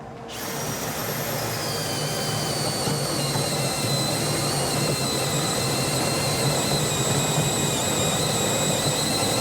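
Cordless drill running steadily under load, driving a meat-grinder winch that winds in a steel cable. It starts just after the beginning and holds as a steady high whine over a low hum.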